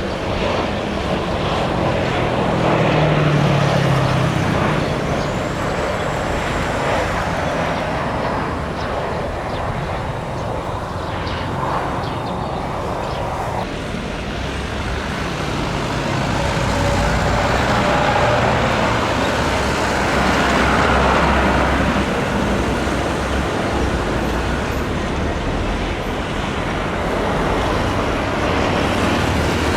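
Steady, loud engine and traffic noise that swells and eases slowly.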